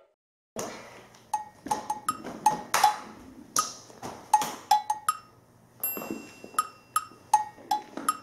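Sharp taps and knocks at an uneven pace of about two or three a second, each with a brief ring: a child's sandals stepping and stamping on a wooden floor as she dances.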